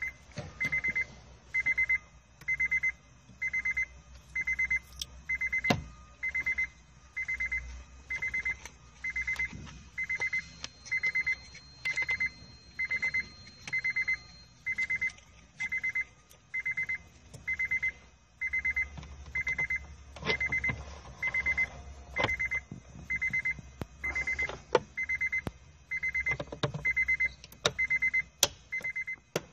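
A car's warning chime beeping over and over at an even pace, about one and a half beeps a second, with the open-door cabin around it. A few sharp plastic clicks and knocks break in as the cabin air filter and its plastic casing are handled and fitted behind the glove box.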